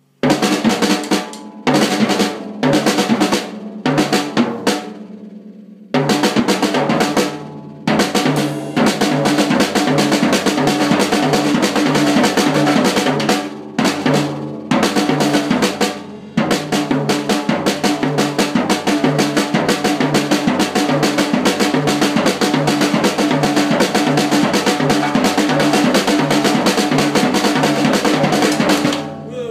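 Drum kit played solo: short, fast runs of snare strokes broken by pauses for the first few seconds, then from about six seconds a long unbroken stretch of rapid strokes over the bass drum, stopping just before the end.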